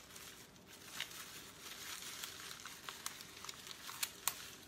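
Clear plastic packaging crinkling and rustling as it is handled, with a few sharp crackles.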